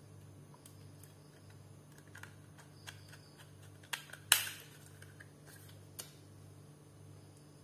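Small clicks and taps of hands and a screwdriver working on the laptop's hard-disk caddy and SSD, with one sharper, louder click a little over four seconds in.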